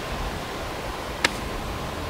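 Steady outdoor background hiss, with one sharp click just over a second in.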